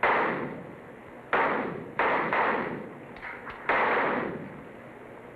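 Four pistol shots fired in an uneven string, each echoing for about a second in an indoor range. Faint clicks come between the third and fourth shots.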